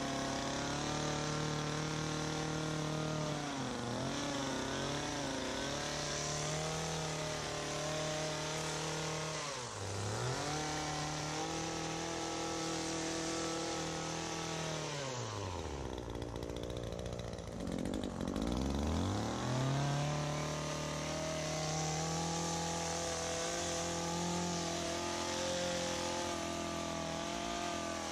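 ECHO PAS2620 power head's two-stroke engine running at high throttle, driving an articulating hedge trimmer attachment. The revs dip briefly about 4 and 10 seconds in. Around 16 seconds in the throttle is let off and the engine falls to idle, then it revs back up a few seconds later.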